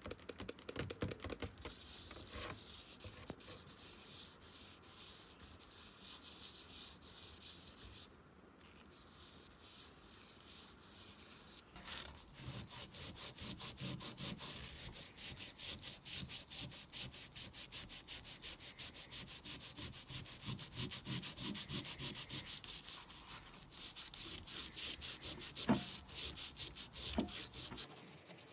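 A red Scotch-Brite abrasive pad scrubbing a piston crown wet with penetrating spray, rubbing off the carbon deposits. It starts as light, uneven rubbing with a short pause. About twelve seconds in it becomes rapid, steady back-and-forth strokes.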